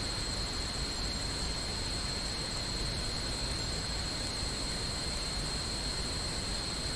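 Steady hiss with a thin high-pitched whine running under it, unchanging throughout: the background noise of a livestream microphone picking up an empty room.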